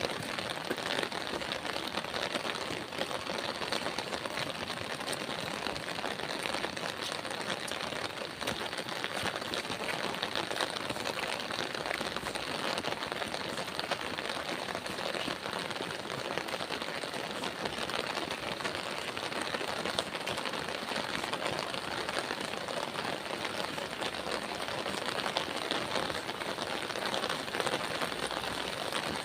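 Steady, heavy rain falling, a dense patter of drops on surfaces.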